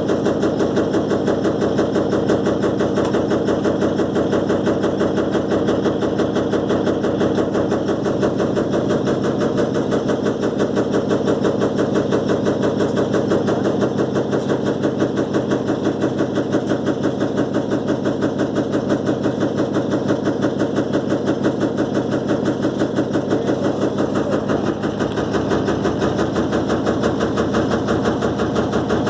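Electrolux LTE12 top-loading washing machine on its spin cycle, the machine shaking and rattling in a fast, steady run of knocks.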